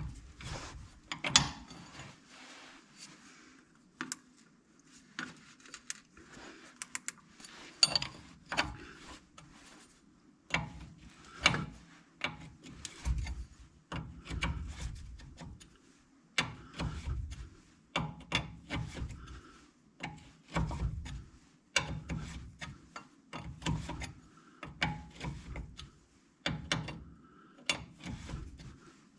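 A hand wrench or ratchet works a bolt loose on the front end, making irregular metallic clicks, ratcheting and clinks of steel on steel.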